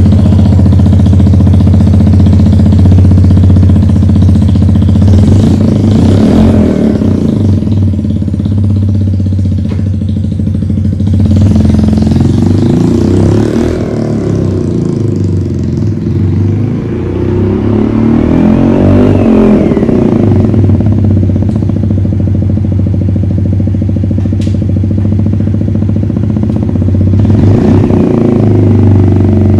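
Dax-style mini motorcycle's single-cylinder four-stroke engine with a custom exhaust, running steadily with several short revs. It fades slightly as the bike rides off, then grows louder again as it comes back.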